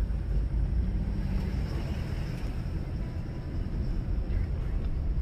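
Car driving slowly with a steady low rumble of engine and tyres.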